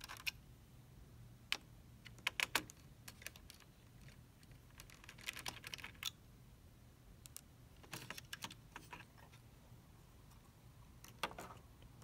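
Faint, scattered clicks and taps of plastic and metal as a laptop hard drive in its metal caddy is worked loose and lifted out of the chassis.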